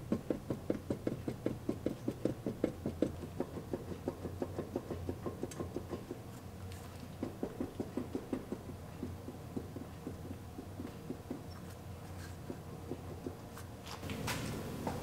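Worn wheel bearing on a 2014 Subaru Forester, turned by hand with the wheel, grinding in a rapid even pulse of about five a second. The pulsing fades after about nine seconds. The sound is the sign of a bad bearing.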